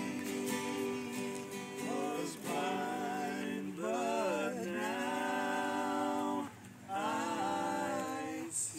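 Bluegrass jam: people singing a song together to acoustic guitar strumming, with a brief pause in the voices about two-thirds of the way through.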